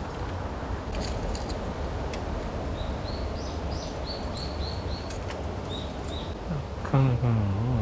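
Wild birds chirping in short, repeated high notes over a steady low background noise. Near the end, a louder, low, drawn-out voice-like sound begins, with its pitch falling slightly.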